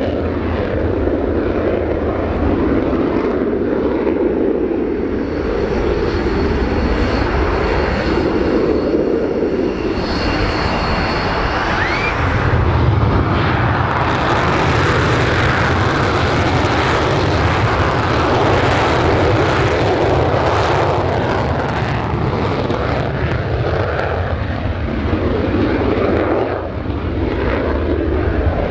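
Two-seat Royal Norwegian Air Force F-16's Pratt & Whitney F100 turbofan running loud and steady on the runway, with a high whine over the roar in the first half. About halfway through, the engine spools up to take-off power for a dry departure without afterburner, and the roar grows fuller and harsher as the jet rolls away.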